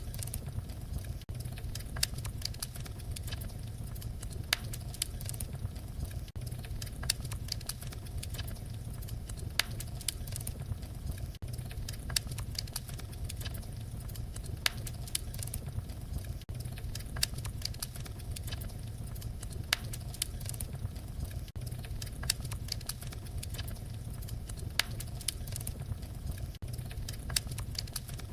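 Fire crackling: irregular sharp pops and snaps over a steady low rumble of flames, with a brief dip in level about every five seconds.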